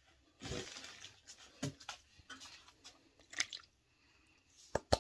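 Rustling and light knocks of kitchen things being handled, then several sharp clicks near the end as milk is poured from a plastic measuring cup into an aluminium mixing bowl.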